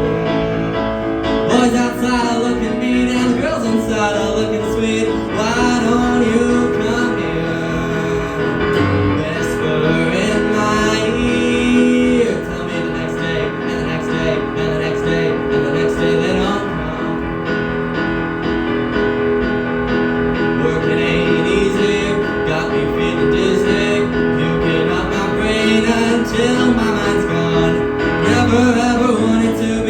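A musical-theatre song sung over keyboard accompaniment.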